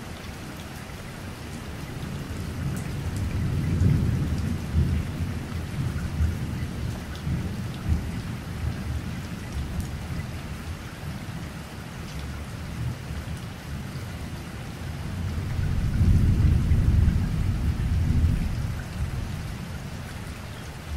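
Steady rain with rolling thunder. A long low rumble swells about four seconds in, and another, louder one builds and fades about three-quarters of the way through.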